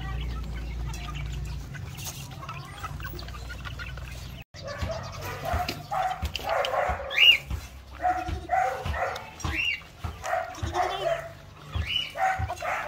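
A low steady rumble for the first few seconds, then, after a sudden cut, a dog barking over and over in short, loud barks, with chickens heard among them.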